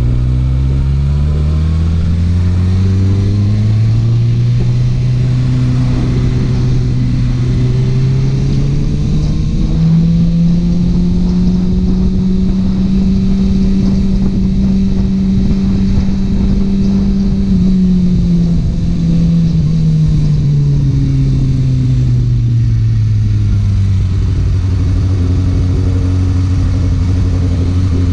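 Kawasaki Ninja ZX-6R's inline-four engine running through an Akrapovič exhaust while riding, with wind rushing over the microphone. The engine note climbs over the first ten seconds or so, holds high through the middle, then falls away again in the last third as the bike slows.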